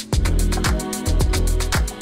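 Background music with a steady beat and deep bass notes that slide down in pitch.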